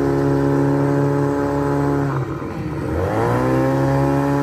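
Outboard motor of a small river boat running steadily. About two seconds in its pitch drops sharply, then climbs back up to the same steady speed within about a second.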